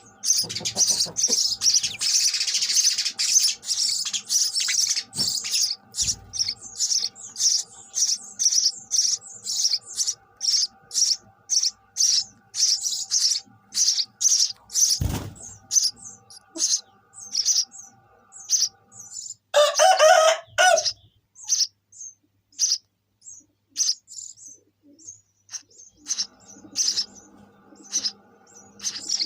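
Sparrows chirping in short, high, repeated calls, about two a second, with a dense chattering stretch in the first few seconds and a harsher burst of calls about twenty seconds in. A single thump sounds about fifteen seconds in.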